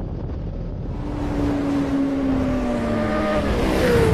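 Motorcycle engine running on the road under low wind rumble, its note dropping slowly as the bike eases off. Near the end a whoosh swells up.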